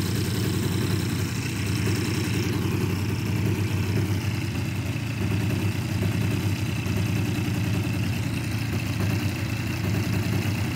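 Desert Aircraft DA-70 twin-cylinder two-stroke gas engine on a 120-inch RC Turbo Bushmaster, fitted with a canister muffler, idling steadily on the ground with its propeller turning.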